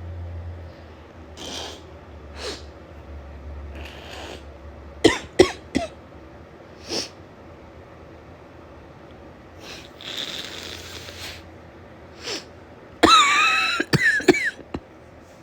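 A woman with a head cold coughing and sniffling: short sniffs and breaths throughout, a couple of sharp coughs about five seconds in, and a harder, voiced coughing fit near the end.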